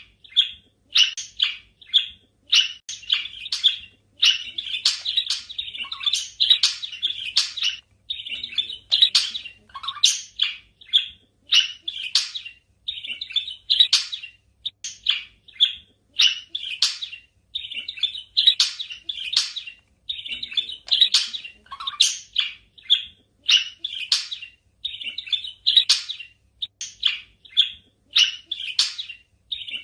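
Pet budgerigars chirping and chattering: a continuous stream of short, high chirps and warbles with only brief pauses.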